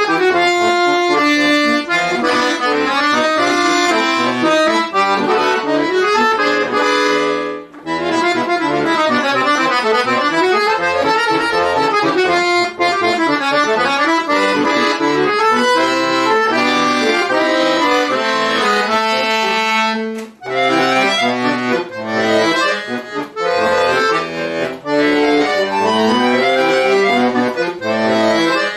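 Chromatic button accordion played solo in a fast run of many-note passages, with a short break about a third of the way in and another about two-thirds in, after which the playing turns more detached and choppy.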